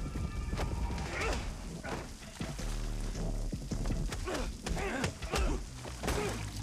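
Heavy rain pouring down while two men grunt and groan in pain between a few sharp thuds, over a low music score.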